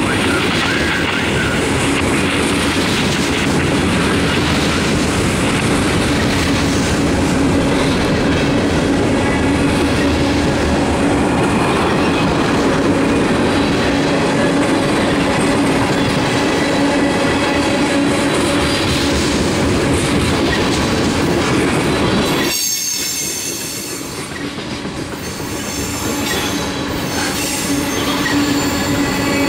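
Freight cars of a long mixed manifest train, covered hoppers and tank cars, rolling steadily past at close range: continuous wheel-on-rail noise with a steady hum running through it. Past the three-quarter mark the sound drops off for a few seconds, then builds back up.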